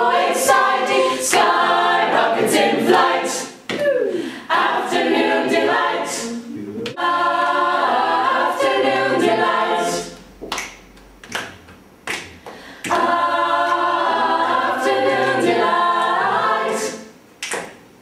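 Mixed choir singing a cappella, several voice parts in harmony. About ten seconds in, the singing drops to a quieter passage of short, separate notes, then the full choir comes back in.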